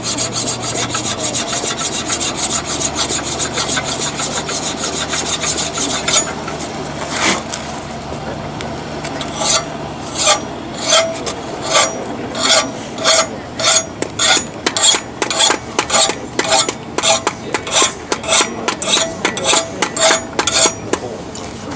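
Steel being filed or rasped by hand, scraping strokes across the metal to clean up a forged tomahawk head before tempering. Quick, continuous strokes for the first few seconds, then after a short pause separate strokes at about two a second.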